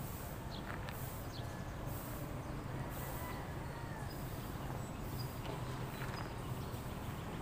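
Open-air ambience: a steady low hum with faint bird chirps and a few small ticks. A faint gliding tone passes about three seconds in.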